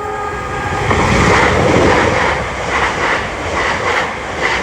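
Class 720 electric multiple unit running in close past, a loud rushing noise building about a second in, with a regular beat of clatter from its wheels on the track.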